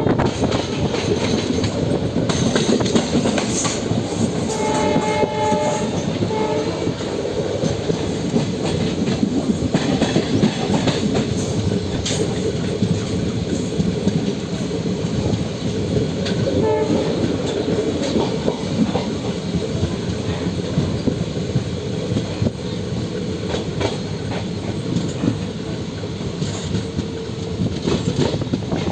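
Train running on the track, heard from on board: a steady rolling rumble with rapid wheel clicks over rail joints. A train horn sounds for about a second, around five seconds in, and again briefly near seventeen seconds.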